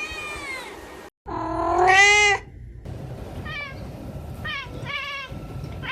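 Cats meowing: a falling meow, a brief cut to silence, then one long, loud meow whose pitch rises and falls, followed by a string of short, higher-pitched meows about every half second to a second.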